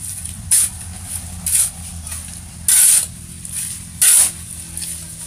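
A shovel scraping and slopping through wet concrete mix on a floor, in four separate strokes about a second apart, over a steady low hum.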